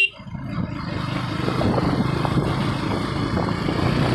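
KTM 250 Duke's single-cylinder engine running steadily while riding, under a hiss of wind on the microphone. The sound drops out almost entirely for a moment right at the start, then builds back within about a second.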